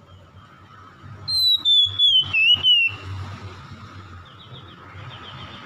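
Oriental magpie-robin singing: a loud, clear whistled phrase about a second in that slides down in pitch and wavers at its end, followed by fainter quick, chattering notes.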